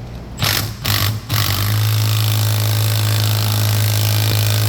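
Impact wrench working the reverse-threaded primary-gear nut off a two-stroke dirt bike's crankshaft: two short blips, then a steady run of about four seconds with a low hum under a dense rattle.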